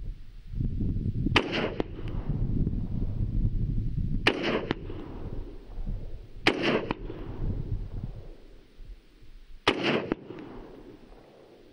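Bushmaster XM15-E2S AR-15 rifle firing .223 Remington, four single aimed shots spaced two to three seconds apart, each with a second crack close behind.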